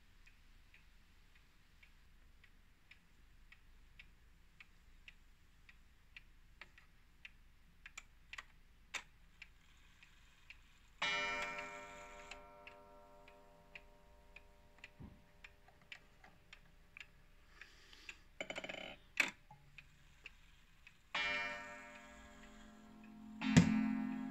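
Metamec pendulum wall clock ticking steadily, then striking. One ringing strike about eleven seconds in, the half-hour, dies away slowly. Near the end, two more ringing strikes begin the count of eight o'clock, the second the loudest, with a couple of brief knocks shortly before them.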